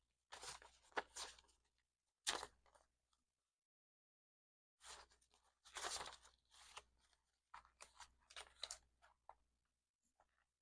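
Paper bills and paper cash envelopes being handled, in several short bursts of crinkly rustling with silent gaps between.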